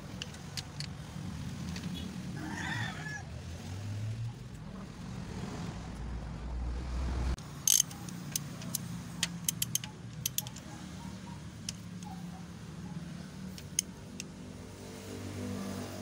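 Hand ratchet wrench and socket working on the engine's timing gear. A sharp metal clack about eight seconds in is followed by a quick, uneven run of ratchet clicks, over a steady low hum in the background.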